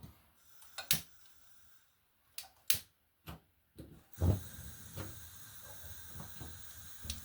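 A kitchen hob being switched on: a few sharp clicks in the first few seconds, then a thud about four seconds in and a steady hiss after it.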